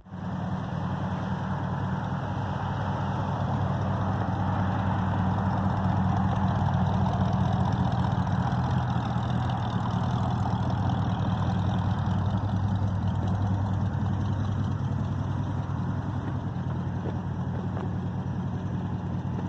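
1971 Ford Thunderbird's V8 engine running steadily, a low, even rumble.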